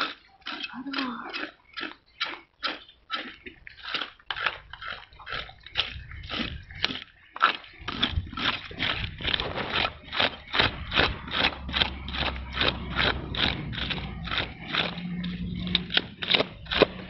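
A blade scraping scales off a large carp in quick repeated strokes, about three a second. A low steady hum runs underneath in the second half.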